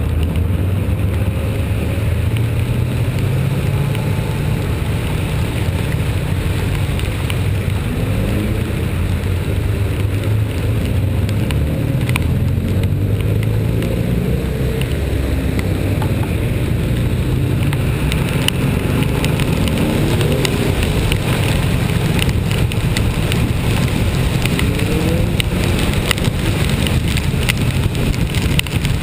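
A vehicle engine running steadily under load with a low rumble, its pitch rising several times as it picks up revs. Rain ticks and patters, more often in the second half.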